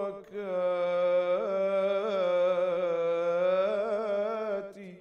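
A man singing an ibtihal, an Islamic devotional chant, solo and without accompaniment. He draws one long melismatic line out with small trills and ornaments, and the voice fades out near the end.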